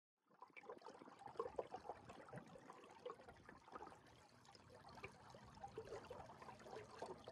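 Faint small waves lapping on a pebble shore: an irregular trickle of little splashes and ticks that fades in shortly after the start.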